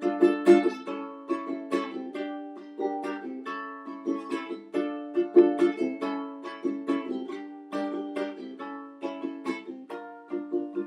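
Acoustic plucked-string instrument playing an instrumental passage without singing: single picked notes and chords come in a steady stream of several strikes a second.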